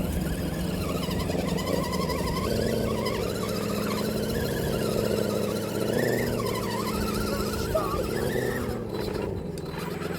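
Axial SCX10 RC crawler's electric motor and gears whining as it climbs a steep dirt hill, the pitch rising and falling with the throttle.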